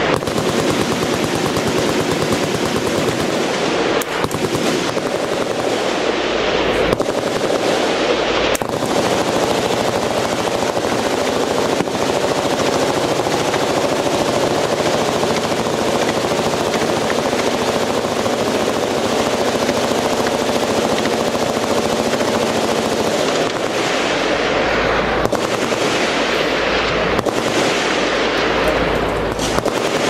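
Many machine guns firing at once from a firing line: a continuous din of overlapping automatic fire with no pauses.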